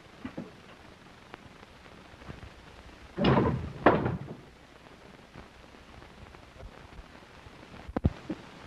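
A heavy rumbling thud lasting about a second, with a sharp knock inside it, about three seconds in. A short click follows near the end, over the steady hiss of an old film soundtrack.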